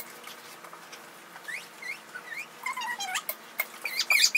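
Marker squeaking against the wedges of a prize wheel as new labels are written, in many short rising chirps with a few sharp taps.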